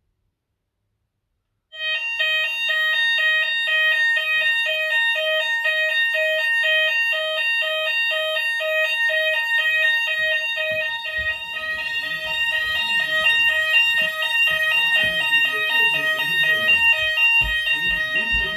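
Fire alarm sounder of a Notifier/Hochiki ESP system in full alarm after a detector test: a loud, fast-pulsing alarm tone of several pitches, switching about four times a second. It starts abruptly about two seconds in and keeps sounding, with irregular low knocks underneath in the second half.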